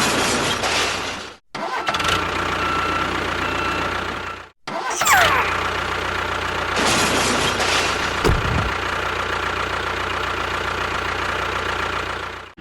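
Steady mechanical running noise from the motor of a small home-built model construction vehicle, cut off abruptly twice early on. A falling whistle-like glide comes about five seconds in.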